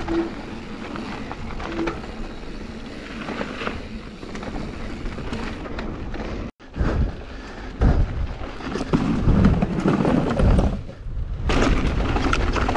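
Wind rushing over a helmet camera while mountain bike tyres roll over a dirt trail, with the bike knocking and rattling over bumps. The sound cuts out for a moment about six and a half seconds in, then comes back louder and rougher with heavy knocks.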